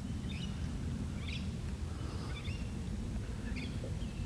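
A few short bird chirps in open bushland, spaced about a second apart, over a steady low rumble of background noise.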